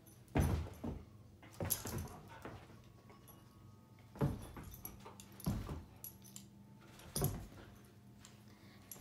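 Two dogs play-fighting on a rug: about half a dozen short, sudden bursts of scuffling paws and jingling collar tags, spread irregularly over the stretch.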